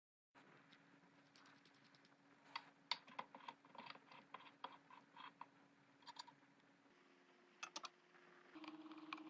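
Faint, irregular small clicks and taps, like hand tools and small metal parts being handled on a workbench, over a low steady hum that steps up slightly in pitch and grows louder near the end.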